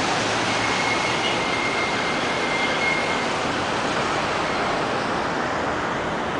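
Steady outdoor rushing noise, even and unbroken, with a faint thin high tone for a few seconds in the first half.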